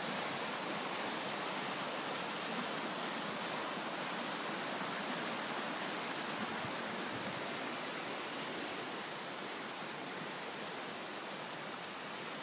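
Fast-flowing, swollen brook rushing over rapids: a steady, even rush of churning water, easing slightly in level in the second half.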